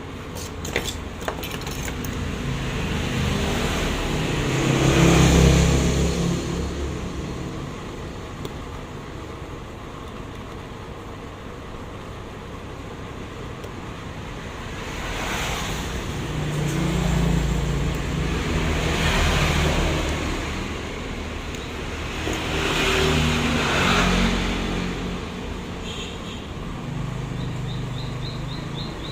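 Road vehicles passing one after another, each a rumble that swells and fades away; the loudest pass is about five seconds in, and three more come in the second half. A few small sharp clicks sound near the start.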